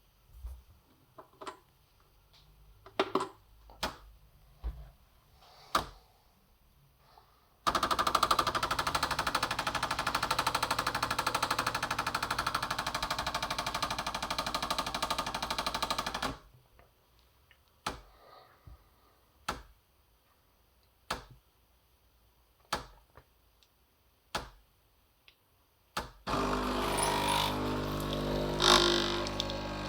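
Bosch Tassimo pod coffee machine brewing a Costa Americano: sharp clicks at first, then its water pump buzzing loudly and steadily for about nine seconds. The pump stops, more clicks come a second or two apart, and the pump starts again near the end.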